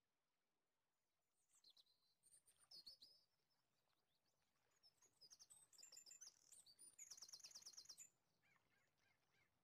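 Faint birds chirping, in short high calls and whistles, with a fast trill lasting about a second near the end.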